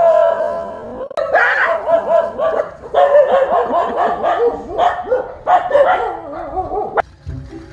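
Dog barking over and over, about two or three barks a second, in alarm at a toy tiger pushed towards it; the barking cuts off suddenly about seven seconds in.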